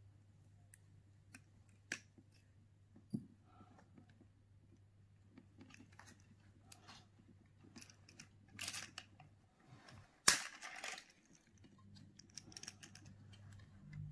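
Small screwdriver and fingers working on a Tomy Plarail toy train's plastic motor chassis: scattered faint clicks and scrapes, with one sharp plastic click about ten seconds in, the loudest sound.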